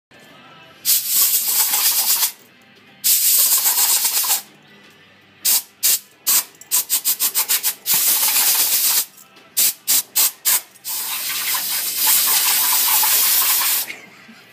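Compressed air hissing from a pistol-grip air gun on an air hose, let off in bursts: two blasts of over a second each, a quick run of short spurts at about five a second, then one long blast of about three seconds near the end.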